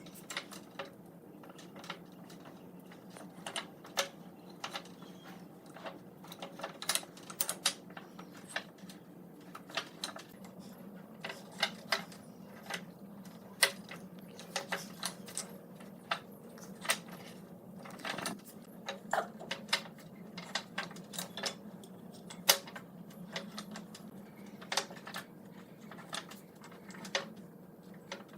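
Irregular sharp clicks and light taps, spaced unevenly throughout, over a steady low hum.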